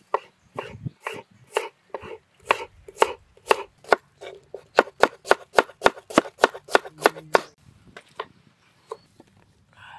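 Knife chopping vegetables on a cutting board: a steady run of sharp strokes, about three a second, quickening in the middle, then a few scattered strokes near the end.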